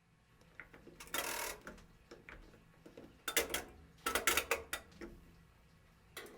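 Old washing machine running with a load of clothes: a steady low motor hum under bursts of clattering and rattling about a second in, around three to five seconds, and again near the end.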